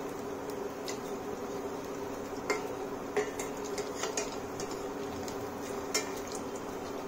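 A metal utensil clinking against a kadhai as corn tikkis are turned in hot oil, a scattered handful of sharp clinks, the loudest about two and a half and six seconds in, over the steady sizzle of frying.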